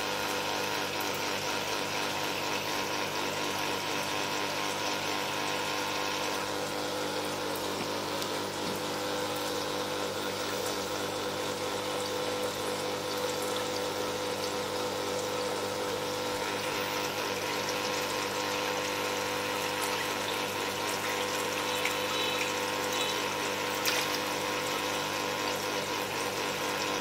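Water from a koi tank's pump return splashing and churning steadily at the surface, with a steady pump hum underneath. A couple of small clicks come near the end.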